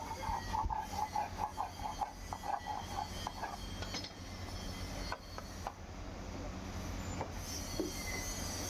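Rhythmic squeaky scraping, about four strokes a second, which stops about three and a half seconds in. A few sharp clicks follow over a steady low hum.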